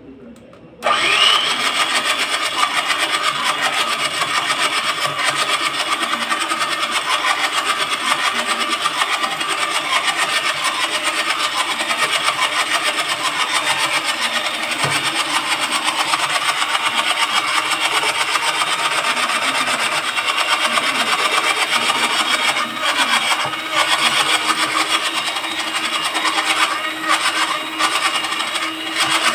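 Electric hand mixer switching on about a second in and then running steadily, its beaters whirring through a batter of flour, butter and eggs as the flour is beaten in.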